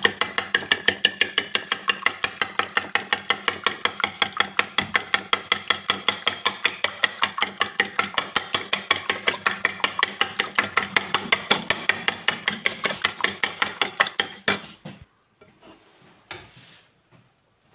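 Fork beating eggs in a ceramic bowl, the tines clinking against the bowl in a fast, even rhythm of about five to six strokes a second. The beating stops about fifteen seconds in.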